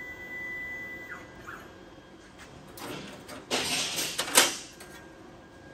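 Thin plasma-cut steel sheet scraping and clattering on the plasma table's steel slats as it is handled and the cut parts are worked loose, a few rough scrapes with a sharp metal clank about four seconds in.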